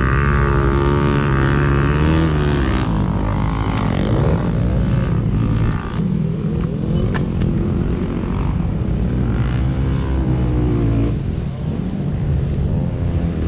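Yamaha motocross bike's engine running, its revs rising and falling several times, heard through the rider's helmet camera.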